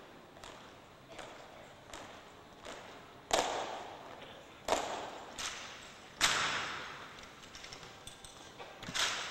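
Sharp, echoing slaps and knocks of rifle drill with 1903 Springfield rifles: hands striking the rifles and rifles and boots hitting the floor in unison. The cracks come at uneven intervals, the strongest about a third of the way in, halfway, and about two-thirds through.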